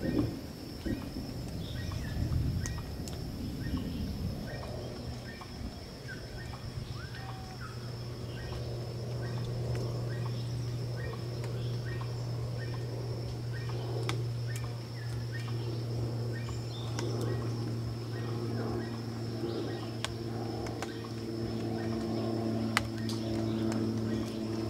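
Birds chirping and calling over a steady high-pitched tone, with a low steady hum that comes in about four seconds in and thickens with further low tones in the second half. A few sharp clicks stand out.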